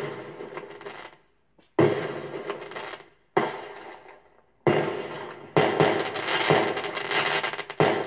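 Aerial firework shells bursting one after another, each sudden bang trailing off in a crackle. After two short lulls early on, the bursts come faster, about one a second, near the end.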